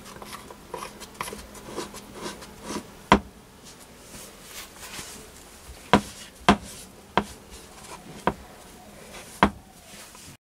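Handling noises from a metal milling spindle assembly on a plywood bench: a cloth rubbing over it and about half a dozen sharp, scattered knocks as it is turned and set down on the wood.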